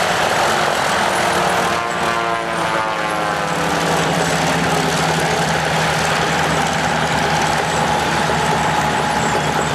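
Junkers Ju 52 trimotor's three radial engines running as it taxis past, a loud steady drone. About two seconds in, the tone sweeps downward for a second or so.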